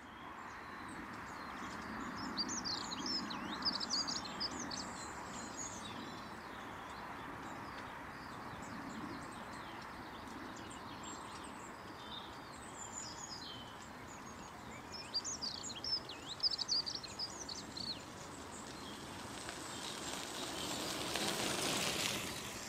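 Wild birds singing and chirping over a steady outdoor background noise, with bursts of song a few seconds in and again past the middle. A rushing noise swells near the end.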